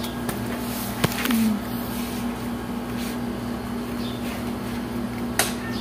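Steady electrical hum in the room, with a couple of sharp clicks and brief rustles as rubber clogs are pulled on and their heel straps flipped into place.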